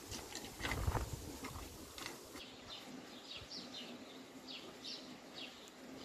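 Footsteps crunching on a loose stony path in the first couple of seconds, then a bird chirping repeatedly: short falling chirps, about two a second.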